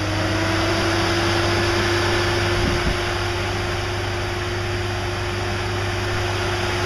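Electric blower of a cab air cooler running: a steady rush of air with a clear whine over a low hum, the whine's pitch creeping up and levelling off in the first second as the motor reaches speed.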